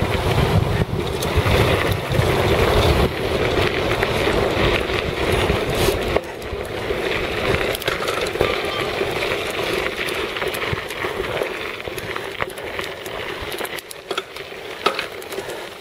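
Mountain bike rolling fast down a gravel fire road: steady tyre crunch on loose gravel with scattered clicks and rattles, and wind rumbling on the microphone. After about six seconds the rumble drops away and the rolling noise grows quieter as the bike slows.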